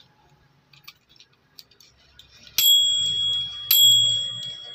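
Bell of a mechanical microwave oven timer struck twice, about a second apart, each ding ringing on with a steady high tone, after a few light handling clicks.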